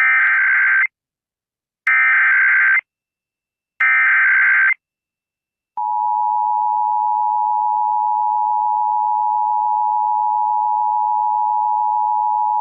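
Emergency Alert System tones: the SAME digital header, a harsh data warble sent three times in short bursts about two seconds apart, then the steady two-tone EAS attention signal starting about six seconds in.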